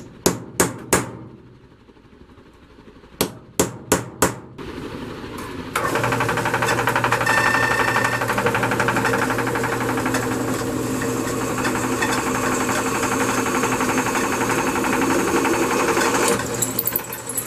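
Hammer striking a center punch into thin steel sheet: four sharp metallic blows, a short pause, then four more. About six seconds in, a drill press starts and runs steadily while drilling a hole through the steel, stopping near the end.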